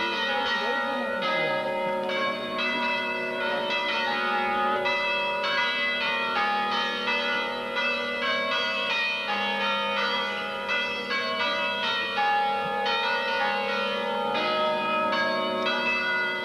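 Church bells pealing: many bells struck in quick, overlapping succession, with a steady low hum underneath.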